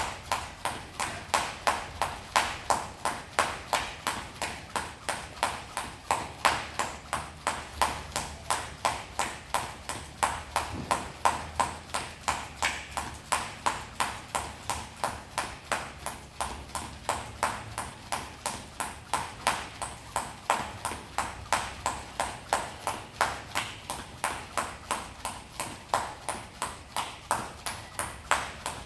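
Jump rope skipping at a steady pace, the rope slapping the floor in an even rhythm of a little over two strikes a second.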